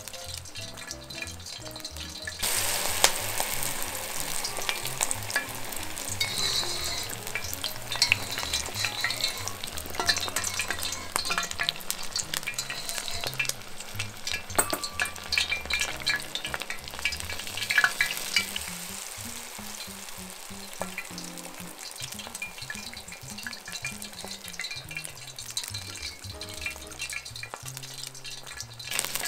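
Battered shrimp deep-frying in tempura oil: a dense crackling sizzle as the water in the flour batter boils off, jumping louder about two seconds in.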